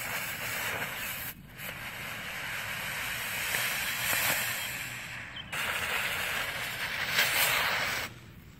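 Smoke balls hissing as they burn and pour out coloured smoke, in three stretches with brief breaks between them; the hiss cuts off a little before the end.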